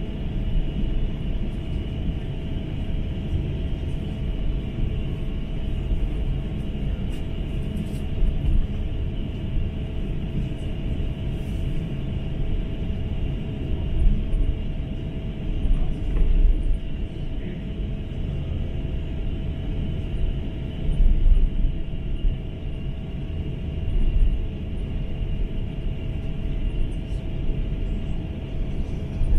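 Airbus A350-900 cabin noise heard from a window seat: a steady low rumble with two faint steady tones over it, and a few brief surges in loudness.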